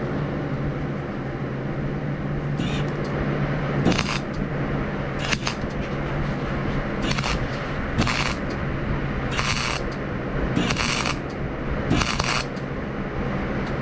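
Electric arc welding in about eight short bursts, each a crackling hiss under a second long, spaced about a second apart: repeated dabs to fill burned-through holes in thin steel rake tines. A steady low hum runs underneath.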